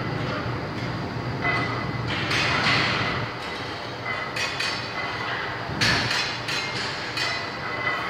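Steady hum of a large weight room with a few short knocks about midway and near the end.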